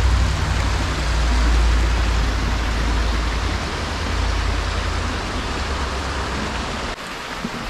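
Small mountain creek running over rocks, a steady rushing hiss. A low rumble lies underneath and cuts off suddenly near the end.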